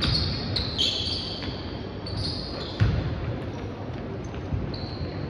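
Basketball game play: sneakers squeak repeatedly on the court floor, and the ball thuds on the floor near the start and again about three seconds in.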